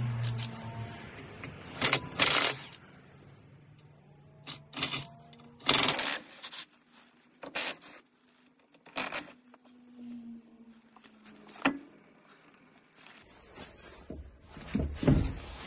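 Metallic clinks and scrapes of a 17 mm socket on the wheel nuts of a classic Fiat 500's front wheel as the nuts are undone, heard as a string of short, separate bursts a second or two apart. Near the end the wheel is worked off its hub.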